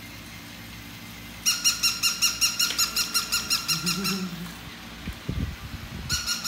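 Battery-operated toy puppy's electronic yapping: a rapid run of short, high, squeaky barks at about six a second, which stops and starts again twice. About four seconds in there is a short low moan, and around five seconds a few low bumps as the husky handles the toy.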